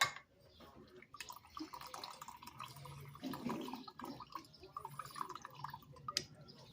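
Water dripping and trickling, with a few sharp clicks.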